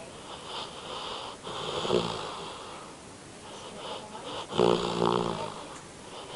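Sleeping dog snoring: two snores about three seconds apart, the second louder, with a high wheezy breath between them.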